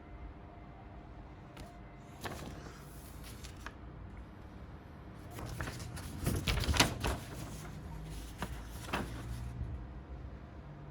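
Rustling and sharp clicks of packaging being handled: plastic trays and cardboard knocked and shifted, in two spells, the louder one about halfway through.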